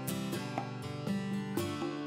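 Background music: a strummed guitar tune with a steady rhythm.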